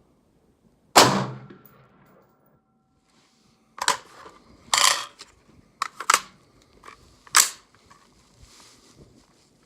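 About six shots from a Daniel Defense Mk18 AR pistol chambered in 5.56, fired at an uneven pace. The first and loudest comes about a second in, with a faint ringing tone hanging after it, and the rest follow in a loose string after a pause.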